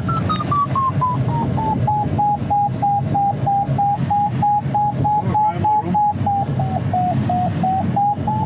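Glider variometer's audio tone: a continuous tone sliding down in pitch, then a steady train of short beeps about three a second that dips in pitch and rises again near the end. Under it is the steady rush of air around the ASK 21's canopy.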